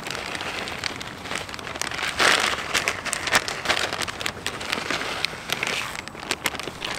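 Wood fire crackling and popping in a small folding metal hobo stove. A plastic bag crinkles now and then as dried noodles and vegetables are shaken out of it.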